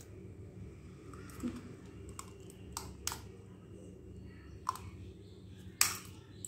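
Scattered light clicks and taps of an eggshell and fingers against a stainless steel mixing bowl as an egg is added to raw chicken, the sharpest click near the end, over a faint steady low hum.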